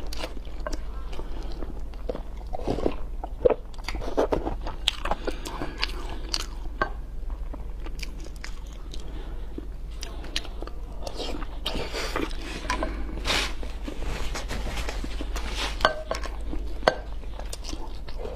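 Close-miked eating sounds: a person chewing and biting a mouthful of luosifen rice noodles, with many irregular wet mouth clicks.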